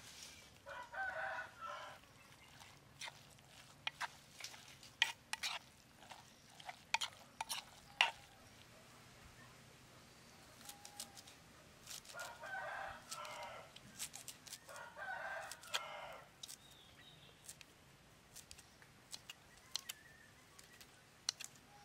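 A rooster crowing three times, each crow lasting about a second and a half: once near the start and twice in quick succession past the middle. Scattered sharp clicks and taps come between the crows.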